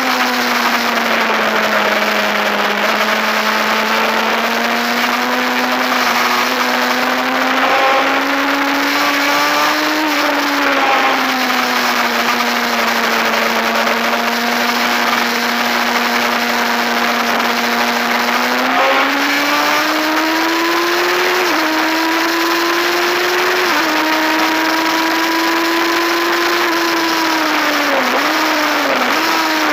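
Racing motorcycle engine heard from on board at full race pace. Its note climbs and drops sharply several times with throttle and gear changes, over steady wind rush on the microphone.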